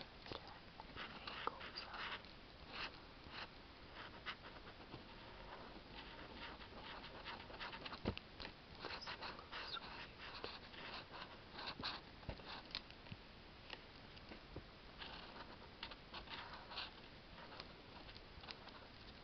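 Felt-tip marker scratching across paper in quick, irregular strokes as it colours in a shape, with one sharp tap about eight seconds in.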